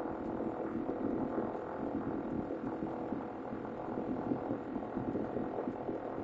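Rumbling, throbbing hum from the air-conditioning unit behind the glove compartment of an Audi TT (8N), running steadily with several steady tones over a rough rumble. It is a fault noise that only comes on with recirculation switched off and began after freezing, snowy weather.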